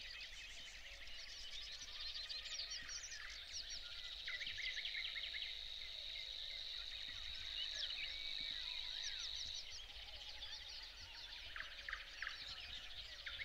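Dawn birdsong of a wet marsh meadow, many songbirds singing at once, with a steady, electric-sounding reel held for about six seconds in the middle, typical of a Savi's warbler.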